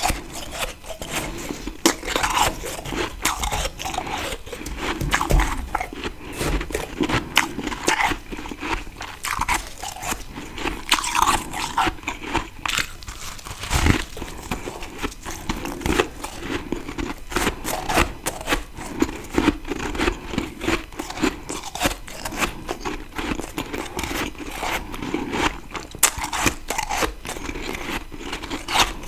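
Close-miked biting and chewing of fresh freezer frost, a dense run of crunching and crackling.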